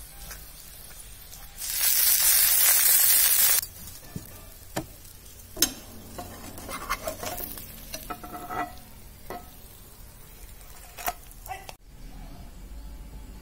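Egg puff pastry sizzling loudly in hot oil in a nonstick frying pan for about two seconds, then metal tongs clicking and scraping against the pan several times as the pastry is turned.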